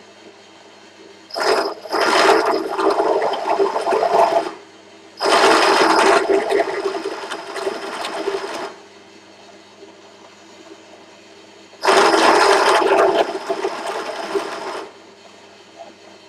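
Bench drill press motor running with a steady hum, broken three times by loud spells of metal-cutting noise, each about three seconds long, as a boring tool is fed down into the cast-iron exhaust port outlet of an AM6 two-stroke barrel.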